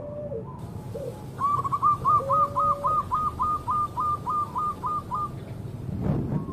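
Zebra dove (perkutut) cooing: a quick, even run of about fifteen short notes, about four a second, that fades out, with a few lower, longer coos before it. A brief low rustle near the end.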